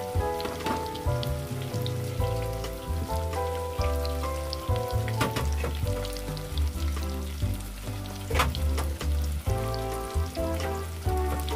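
Tofu cubes deep-frying in a pot of oil, sizzling with scattered crackles, under background music with a stepping melody and a steady bass line.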